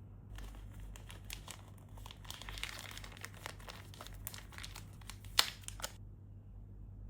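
Plastic packaging crinkling and crackling as it is handled and opened, with a sharp click about five seconds in; the crinkling stops about a second before the end.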